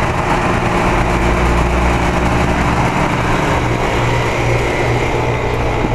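Carrier TECH2000 central air-conditioner condensing unit running: a steady rush of air from the condenser fan over a low, even hum.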